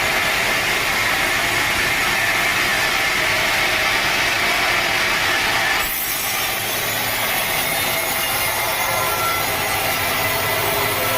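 Sawmill saw cutting steadily through a teak log, with a continuous grinding hiss. About six seconds in, the sound shifts abruptly to a brighter, hissier tone.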